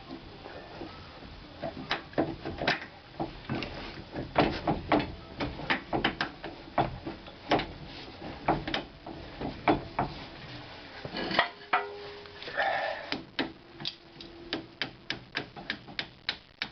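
Metal clanks and knocks as a pry bar levers the rear steering knuckle into line with a new strut's bottom bolt holes, with a scrape about two-thirds of the way through, then a run of quick, even taps of about three a second near the end.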